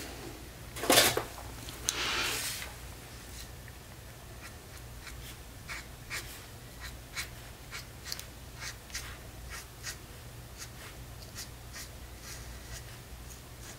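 Tip of a paint marker dabbing and stroking along the edge of a paper card: a run of short, faint scratches. A knock and a brief rustle of handling come about a second in.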